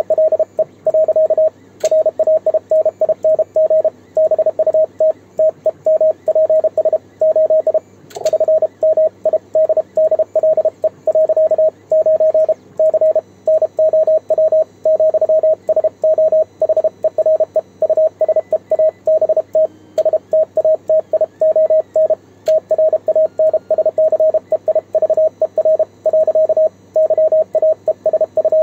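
Morse code sent on a home-made 3D-printed single-lever paddle, heard as the transceiver's CW sidetone: a single steady beep of one pitch, keyed on and off in quick dots and dashes.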